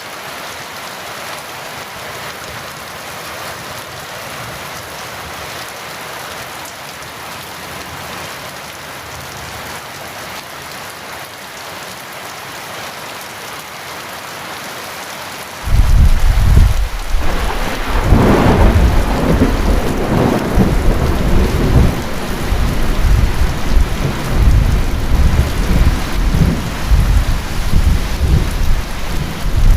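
Heavy rain falling with a steady hiss; about halfway through a loud rumble of thunder comes in suddenly, swells a couple of seconds later and keeps rolling.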